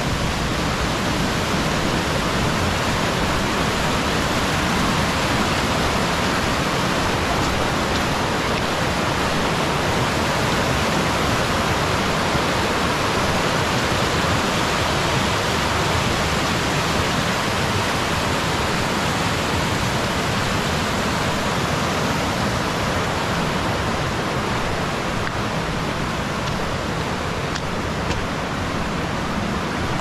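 Rushing mountain stream tumbling over rocks: a steady rush of white water.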